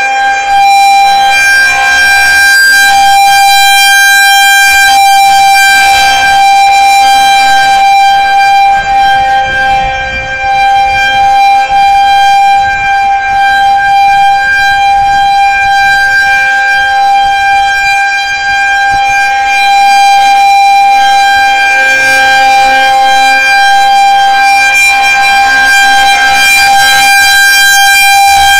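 Federal Signal 2001-130 outdoor warning siren, very loud, holding one steady pitch with its loudness dipping and swelling slightly. It is sounding a tornado warning.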